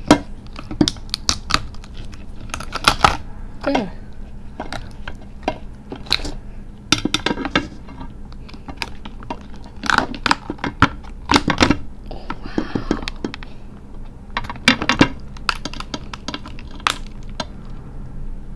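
Shell of a whole cooked crab cracking and snapping in irregular sharp cracks as it is cut and pried apart by hand, with a short crunchy crackling stretch a little past halfway.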